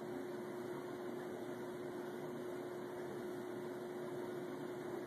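Steady background hiss with a faint constant hum and no distinct events: room tone.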